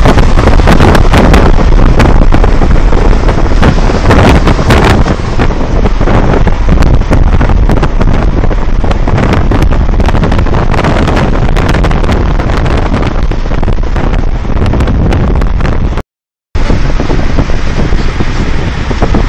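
Loud wind buffeting on the microphone together with the road noise of a moving car. It cuts out completely for about half a second near the end.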